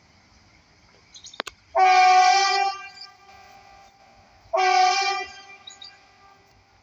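Train horn sounding twice, shrill: a blast of about a second, then a shorter one about three seconds later, with a sharp click just before the first.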